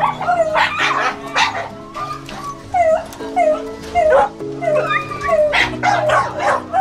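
Caged dogs barking and yipping over and over, about two short, falling yelps a second, over background music.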